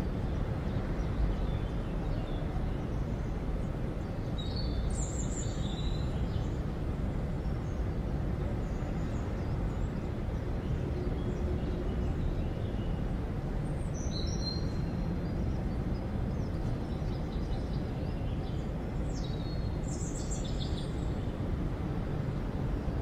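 Outdoor ambience: a steady low rumble with birds chirping briefly a few times, around five seconds in, near fourteen seconds, and again around twenty seconds.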